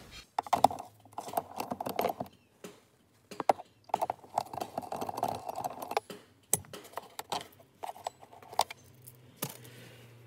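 Hand tool clicking, knocking and scraping on a 10 mm bolt in the bottom of a plastic centre console bin as the bolt is undone, in irregular bursts with short pauses.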